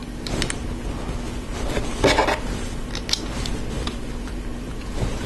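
LEGO plastic bricks clicking and clattering as they are handled and pressed together, in scattered sharp clicks with a louder clatter about two seconds in.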